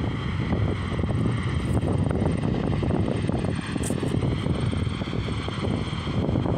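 Jet engines of a China Eastern wide-body airliner running with a steady rumble and a faint whine as the plane rolls along the airfield, with wind crackling on the microphone.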